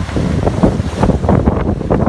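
Strong wind buffeting the microphone in uneven gusts, over the rush of waves and the sailboat's wake.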